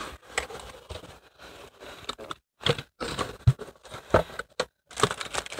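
Cardboard mailer box opened by hand, its flaps scraping and the clear plastic bags of supplies inside crinkling, with a few sharp knocks along the way.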